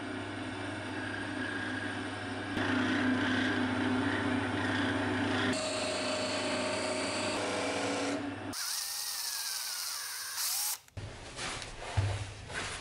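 Small benchtop wood lathe running steadily while the spinning beech handle is rubbed with a rag and then worked with a hand tool, the rubbing and cutting noise riding over the motor hum. About eight seconds in the lathe sound stops and gives way to a high hiss, followed near the end by a few sharp knocks.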